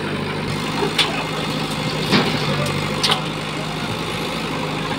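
Diesel engines of a JCB backhoe loader and a Massey Ferguson 7250 DI tractor running steadily while soil is loaded into the tractor's steel trolley, with three sharp knocks about a second apart.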